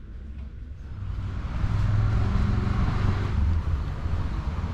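A motor vehicle passing close by: a low engine and road rumble that swells from about a second in, is loudest in the middle and eases off slightly near the end.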